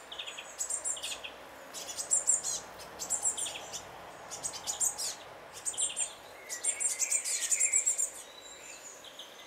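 Blue tit fledgling begging calls: short, very high-pitched chirps in quick clusters, repeating about every half second.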